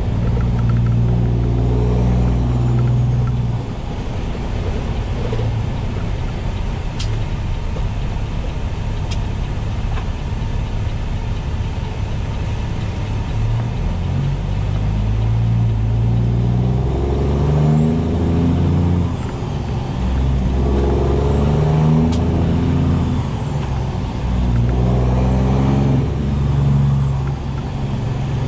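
Straight-piped Peterbilt 389 semi's diesel engine heard from inside the cab: pulling at first, easing off for a long stretch, then pulling again through several gear changes. Its note climbs and drops back with each upshift. A faint high whistle rises and falls with each pull.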